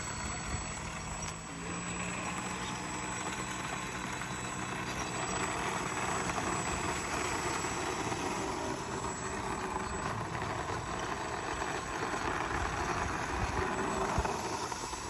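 RC airplane's motor and propeller running as the plane taxis on the ground, a steady whirring that grows louder through the second half as it comes closer.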